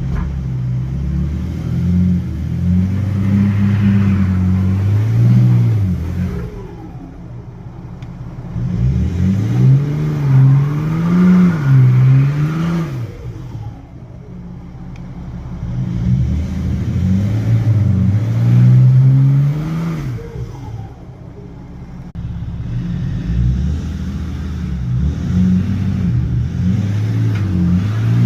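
Turbocharged BMW engine revving in long swells that climb and fall over several seconds each, with short lulls between.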